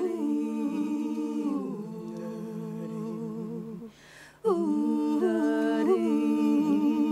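Women's voices humming wordlessly in harmony, unaccompanied, on long held notes that glide between pitches. A brief break comes about four seconds in.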